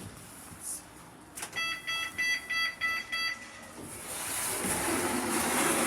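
Passenger lift beeping six times in quick succession, about three beeps a second, after a floor is selected. A rising hiss and hum of the lift's doors and machinery then follows.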